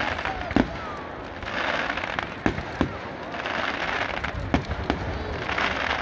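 Aerial fireworks bursting: several sharp bangs at irregular intervals, over a steady background hiss and the voices of a crowd.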